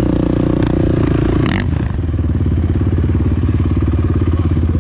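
Quad (ATV) engine running under way on a dirt trail, recorded from the rider's seat, with a brief knock about a second and a half in.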